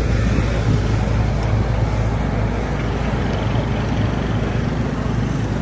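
City street traffic noise: a steady low engine hum from vehicles running close by, under a general wash of roadway noise.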